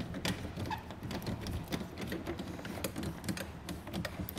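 Yakima locking speed knobs being turned by hand to clamp a camp kitchen's cleats onto its mounting tracks, giving quick, irregular clicks.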